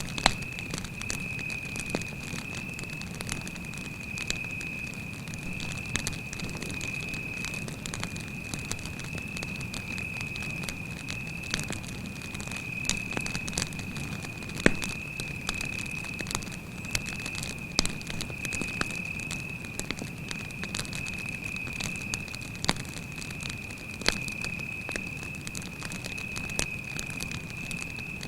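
Wood campfire crackling, with frequent sharp pops and snaps over a low rumble of burning, while a cricket trills on one steady high note without a break.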